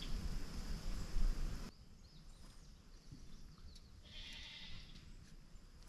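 Faint bleating of goats or sheep over a low outdoor background.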